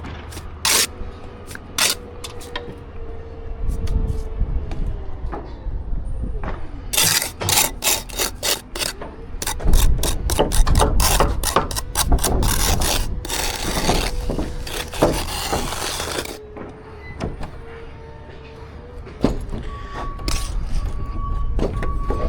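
Hand tools scraping and knocking on mortar and timber during bricklaying work: a run of sharp scrapes and knocks, busiest in the middle, over a steady low rumble.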